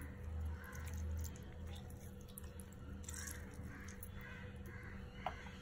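Faint room noise with a steady low hum, and faint animal calls, like a bird's, repeating in the background. There is a small click near the end.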